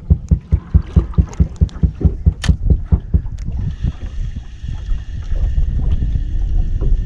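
Water slapping against a small fishing boat's hull in quick, regular strokes, about four a second. From about three and a half seconds in, the slapping gives way to a steadier hum with a faint high whine.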